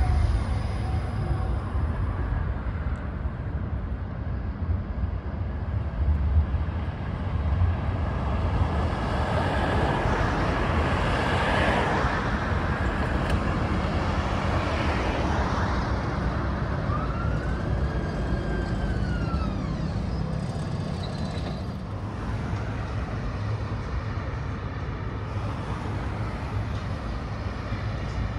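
Škoda 30T ForCity Plus tram rolling in along the rails toward the stop, a steady low rumble with a broad swell of noise that is loudest about twelve seconds in. About seventeen seconds in, a short squeal rises and then falls in pitch.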